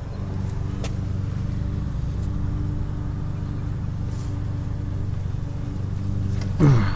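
A steady low engine-like hum, as of a motor idling. Near the end a short tone drops sharply in pitch.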